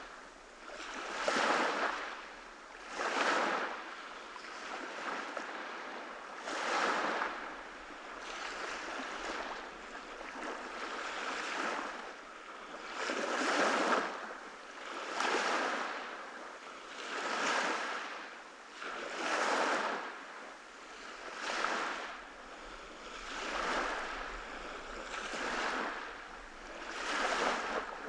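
Small ocean waves washing onto a beach, with a swell of surf hiss rising and falling about every two seconds.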